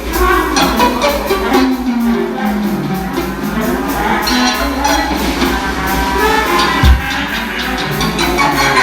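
Batucada, Brazilian samba percussion, playing a fast, dense rhythm with a strong bass-drum pulse and shaker and tambourine-like jingles on top. A single loud, deep thump stands out about seven seconds in.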